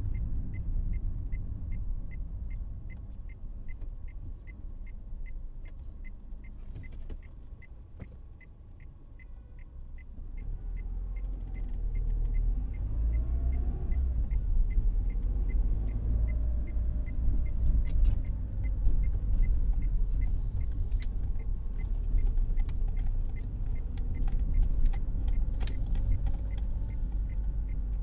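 Car cabin with the windows closed: low engine and road rumble fades as the car slows almost to a stop, then builds again as it pulls away and speeds up. A light, regular ticking runs through the first half.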